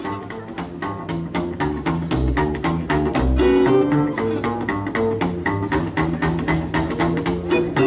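Country and rockabilly band playing an instrumental break: guitar lines over a plucked upright bass, keeping a quick, steady beat.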